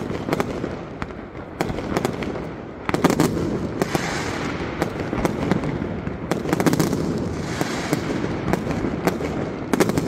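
Fireworks display: a quick string of aerial shell bursts with continuous crackling, and a louder, denser volley of bangs about three seconds in.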